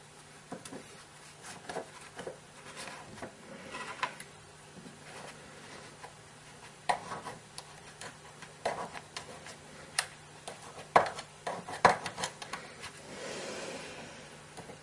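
Small handling noises as a cotton ball is pushed and packed down into a Zippo lighter's metal insert with a pointed tool: irregular light scrapes and taps, with a few sharper clicks in the second half and a brief soft rubbing near the end.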